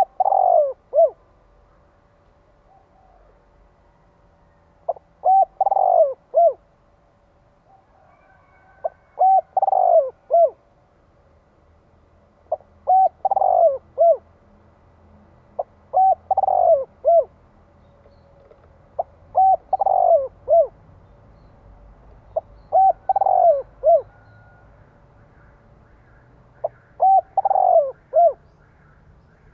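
Spotted dove cooing: short phrases of three or four notes, repeated about every three to four seconds, eight times. This is the rapid, insistent 'thúc gù' cooing of a male used as a lure call to provoke wild doves.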